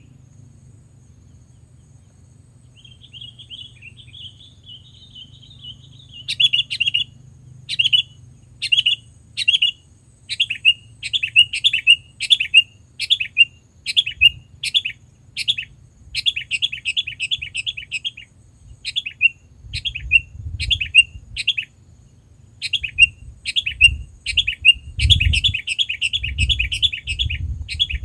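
Sooty-headed bulbul (kutilang) calling. A short warbling phrase comes about three seconds in, then sharp chirps repeat about once a second, in places running into quick chattering runs. A low rumble sits underneath and gets stronger near the end.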